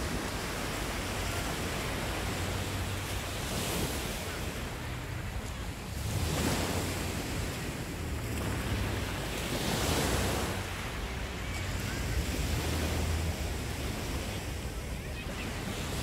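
Small sea waves breaking and washing up a sandy beach, surging every few seconds, with wind rumbling on the microphone.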